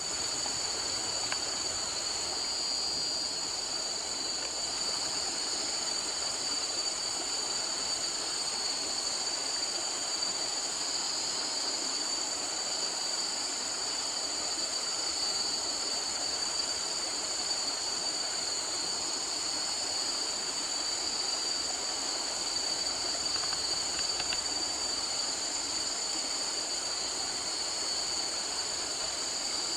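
Steady outdoor nature ambience: an even rushing hiss, with a continuous high-pitched shrill on top that wavers slightly but never stops.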